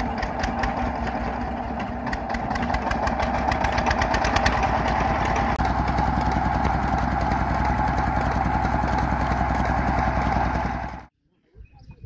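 Stationary diesel engine running with a steady rhythmic beat, picking up speed and getting louder over the first few seconds as it drives a fodder chaff cutter by a long flat belt. The sound cuts off suddenly about eleven seconds in.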